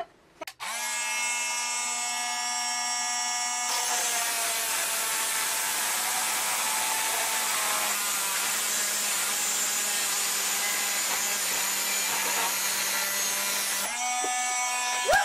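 Cordless oscillating multi-tool fitted with a carbide blade, cutting a large steel screw flush with the wall. It starts with a steady whine that turns to a rougher grinding rasp about three seconds in, then runs evenly for about ten seconds and stops shortly before the end.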